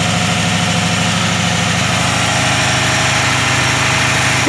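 Freshly installed Chevrolet V8 with a four-barrel carburetor idling steadily on its first run after the engine swap.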